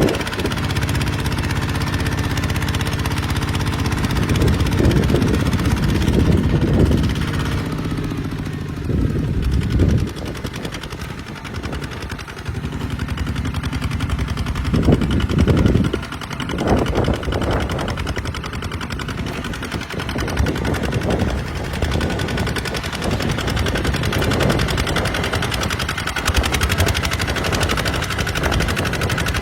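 Kubota RT140 single-cylinder diesel engine running with a rapid thumping beat, its level and pitch rising and falling as the load changes while plowing.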